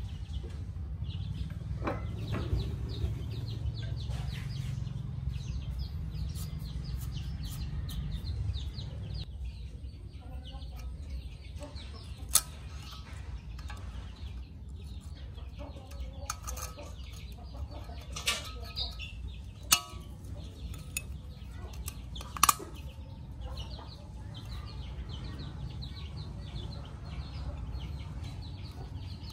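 Pliers working a metal ring inside a steel bore, giving a few sharp metal clicks near the middle, over a low machine hum that drops off about a third of the way in.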